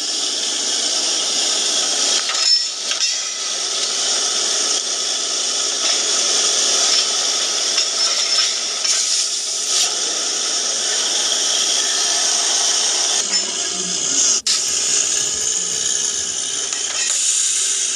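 Small electric motor of a homemade mini borewell drilling rig running steadily with a high whir, briefly dropping out near the end.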